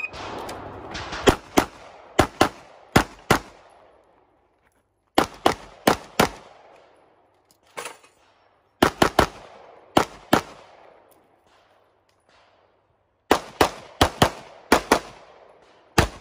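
A shot-timer start beep, then a stage of rapid pistol fire: about two dozen shots, mostly in quick pairs, in bursts of four to six with pauses of one to three seconds between, each shot trailing a short echo.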